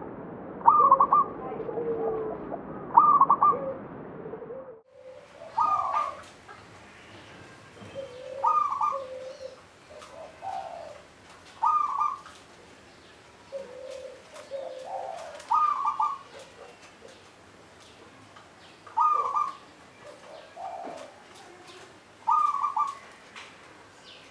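Zebra dove (perkutut) cooing: short phrases repeated about every three seconds, each ending in a louder, higher note. A hissy background drops away about five seconds in, and faint high clicks run under the later phrases.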